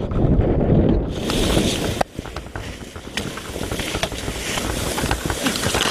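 Wind rushing over the helmet microphone of a paraglider descending, then, from about a second in, the pilot crashing into a tree canopy: leaves rustling and twigs and branches snapping and crackling, with several sharp cracks.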